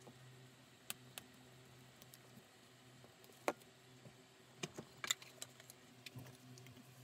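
Scattered light clicks and taps from a plastic glue spreader and glue tin being handled on a cutting mat, the sharpest about halfway through and a quick cluster about five seconds in, over a faint steady hum.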